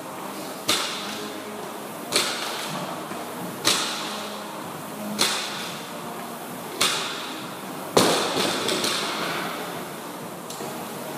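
Barbell loaded with 90 kg of rubber bumper plates knocking down on the gym floor on each deadlift rep, about every second and a half, each knock followed by a brief rattle of the plates. The sixth knock, about eight seconds in, is the loudest, as the bar is set down to end the set.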